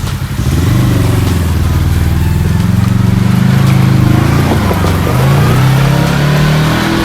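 Kawasaki KRX 1000 side-by-side's parallel-twin engine under throttle, revving up about half a second in. Its pitch rises and falls with the throttle and dips briefly about four and a half seconds in before climbing again.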